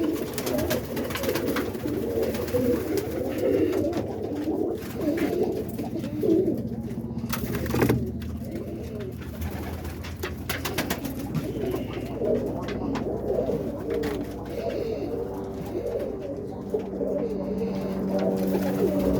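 A loft full of roller pigeons cooing continuously, many voices overlapping, with a few sharp clicks among them.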